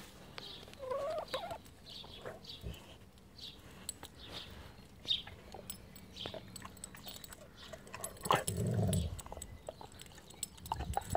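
Chocolate Labrador chewing on a bone, its teeth making many small clicks, while hens cluck softly nearby. A brief, louder low sound comes about eight seconds in.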